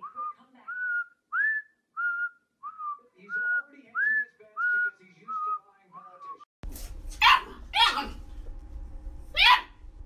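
A person whistling a string of short notes, about two a second, each sliding up and then holding steady. About two thirds of the way in the background changes abruptly and a dog barks sharply three times.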